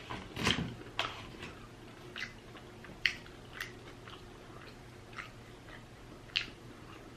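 A person chewing food with wet lip-smacking clicks, coming irregularly every half second to second. The loudest smack comes about half a second in.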